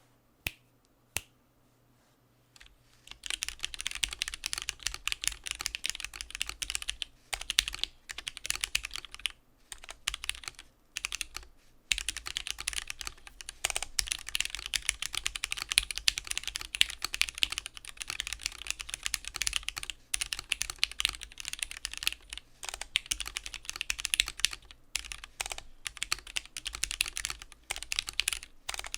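Typing on a Keebio Quefrency split mechanical keyboard with lubed Gateron Black linear switches and PBT keycaps: two single key presses, then from about two and a half seconds in a fast run of key clacks with a few short pauses.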